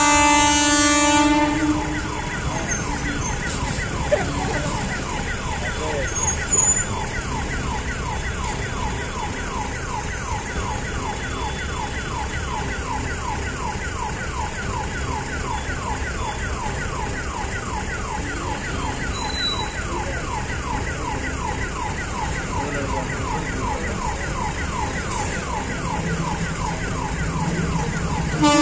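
Electronic warning hooter at a closed railway level crossing, sounding a rapid, evenly repeated chirping alarm over the low hum of idling motorcycles and traffic. A steady horn-like tone is heard at the start and stops after about a second and a half.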